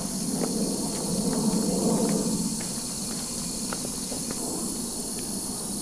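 Cicadas buzzing in a steady, high-pitched chorus, with a low rumble underneath for about the first three seconds.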